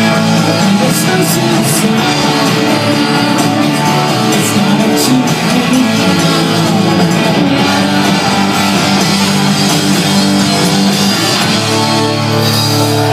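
Rock band playing live and loud: electric guitars, bass and drums with cymbal crashes, a chord held steady near the end.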